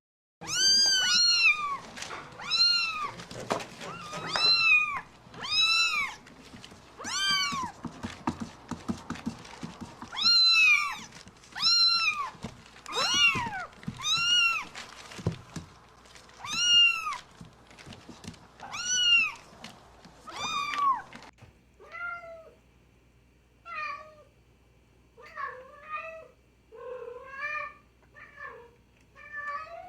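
Domestic cats meowing: a kitten gives about a dozen loud, high-pitched, arching meows one to two seconds apart, then about two-thirds of the way in a different cat takes over with lower, softer, shorter meows in quicker succession.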